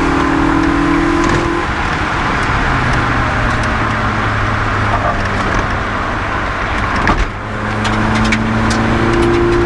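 Rally car engine pulling hard at speed, heard inside the cabin with road and wind noise. The engine tone holds steady, then dips briefly about seven seconds in before building again. Occasional sharp ticks sound over it.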